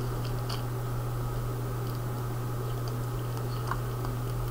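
Hand pressing into fluffy slime, giving a few faint sticky clicks in the first second and a couple of soft ticks near the end, over a steady low hum.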